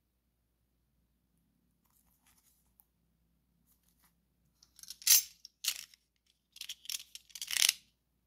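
Plastic shrink wrap on a paperback book crinkling as it is handled, in several short rustling bursts, the loudest about five seconds in.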